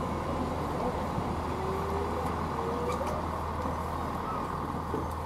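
Passenger train carriage rolling slowly alongside a platform: a steady low rumble.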